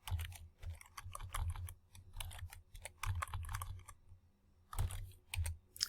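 Typing on a computer keyboard: a run of quick key clicks, a pause of about a second, then a few more keystrokes near the end.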